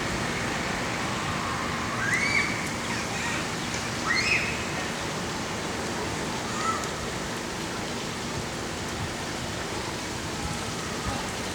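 Steady rushing outdoor noise with two short rising calls about two and four seconds in, and a fainter one later.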